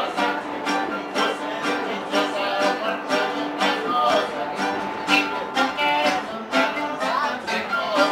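Mariachi band playing live on acoustic guitars, strummed in a steady rhythm with a melody running over the chords.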